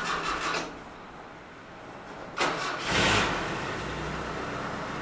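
A pickup truck's engine is cranked by the starter, which stops about half a second in. A second crank comes about two and a half seconds in, and the engine catches, loudest as it fires, then settles into a steady idle. This is the first start after the truck has sat for a while, with a newly fitted clutch and a reinstalled starter.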